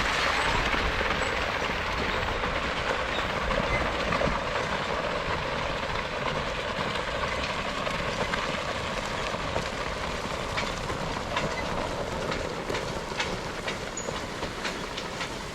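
Steel excavator track dragged over the ground behind a team of draft horses: a steady scraping rattle with scattered clicks, slowly fading.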